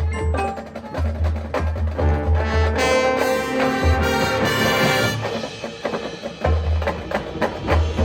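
Marching band playing: brass and front-ensemble mallet percussion over heavy bass drum and timpani-like hits, with sharp wood-block strokes. A full sustained brass chord swells in the middle.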